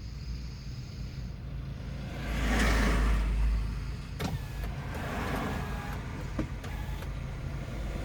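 A sleeping woman snoring: slow, noisy breaths that swell and fade over a deep rumble, the loudest a little over two seconds in and a weaker one about halfway through, with a couple of sharp clicks.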